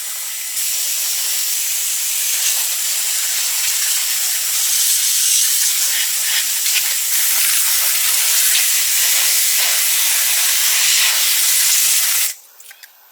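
High-pressure jet spraying with a loud, steady hiss, cutting off abruptly about twelve seconds in.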